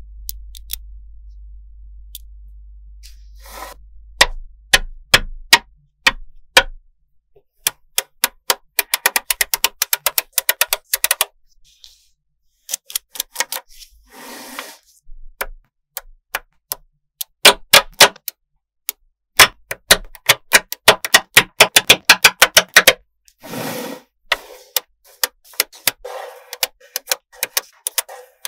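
Small magnetic balls snapping together, in sharp clicks and fast runs of clicking as rows of balls are joined and pressed into a flat sheet, with a few brief rattling clatters. The clicking starts a few seconds in.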